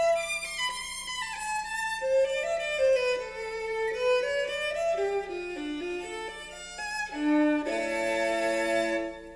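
Violin music played back through a Western Electric 4165 loudspeaker driven by 1126 and 59 amplifiers: a flowing melody that moves from note to note, with several notes held together near the end.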